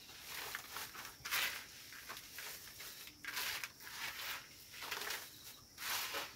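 Handfuls of chopped leafy greens being lifted, tossed and turned over on a plastic sheet: repeated rustling swishes of leaves on crinkling plastic, about one a second.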